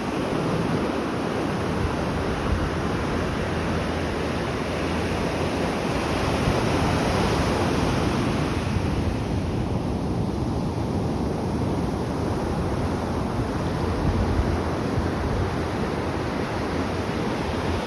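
Atlantic Ocean waves: a continuous rushing of surf that swells a little about a third of the way in, with some wind on the microphone.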